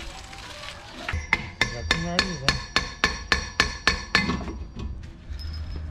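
Hammer striking metal in a quick, even series of about a dozen ringing blows, roughly four a second, starting about a second in and stopping a little past four seconds.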